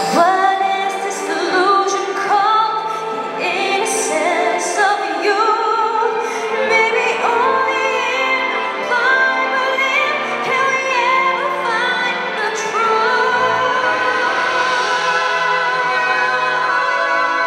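A female solo singer sings a ballad melody live with a symphony orchestra behind her, ending on a long held note.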